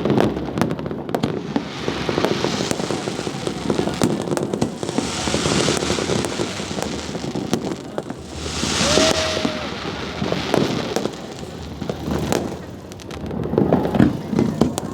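Fireworks display: a steady run of pops and crackles, with swells of hissing crackle from bursting shells twice in the middle and a cluster of louder bangs near the end.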